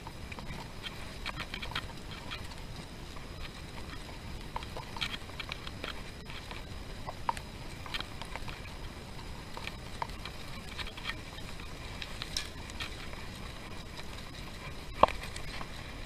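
Bicycle riding down a road: a steady noise of wind and tyres with scattered light clicks and ticks, and one sharp knock about fifteen seconds in.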